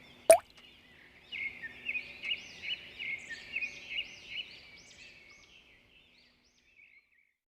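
A bird singing a run of quick, repeated arched chirps, steady for about three seconds, then thinning out and fading. Just before it, a very brief sharp sound sweeping down in pitch is the loudest thing.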